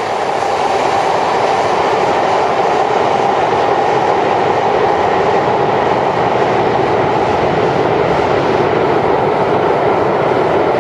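Shinkansen train running out of an underground station into the tunnel: a steady, loud running noise of the train on the rails.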